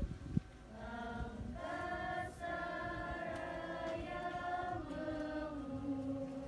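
A group of voices singing together in long held notes, the pitch stepping to a new note every second or so. A single short thump about half a second in.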